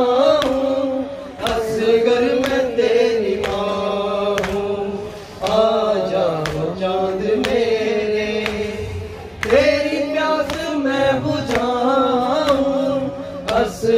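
A male voice sings a noha lament through a microphone in a drawn-out, wavering melody. Under it come sharp strikes about once a second, the mourners' chest-beating (matam).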